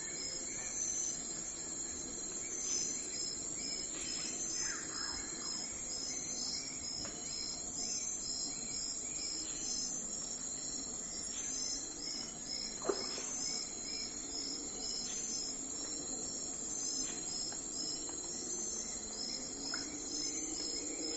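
A steady, high-pitched insect chorus of evenly repeating chirping pulses, with a few brief bird chirps scattered through it, one sharper call about halfway through.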